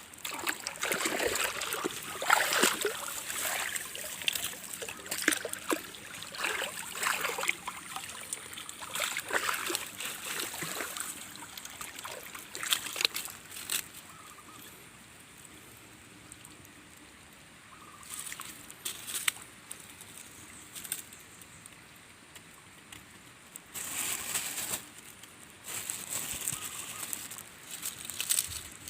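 Water splashing and sloshing in irregular bursts, dense through the first half and sparser later, with a couple of louder bursts near the end.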